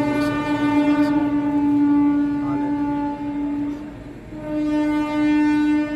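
Train horn sounding two long blasts at one steady pitch, with a short break just before the second begins about four and a half seconds in.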